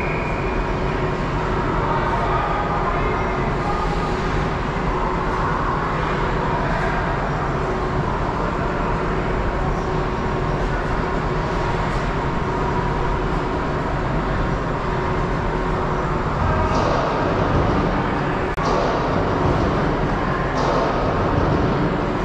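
Ice hockey rink ambience during play: a steady din of skates on the ice and arena noise, with a few sharp clacks.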